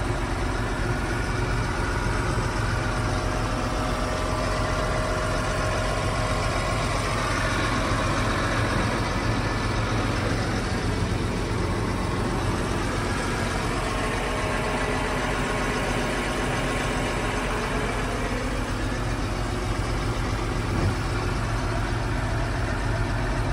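John Deere 8370R's 9.0-litre six-cylinder diesel engine idling steadily, heard from inside the cab.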